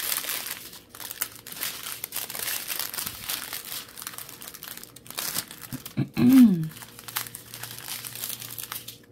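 Clear plastic bags of diamond-painting drills crinkling and rustling as they are handled and shuffled through, with a brief vocal sound about six seconds in.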